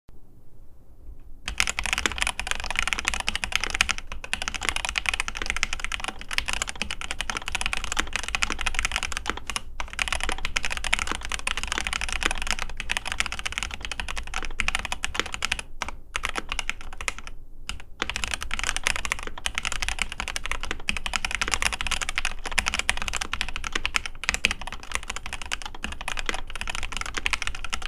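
Fast typing on a mechanical keyboard: a dense, continuous run of key clacks that starts a second or so in, broken by a few short pauses.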